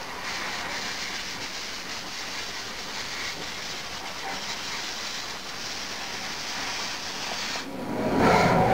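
Steady hiss of machine-shop noise beside a Haas CNC mill. Near the end it cuts to a louder machine sound.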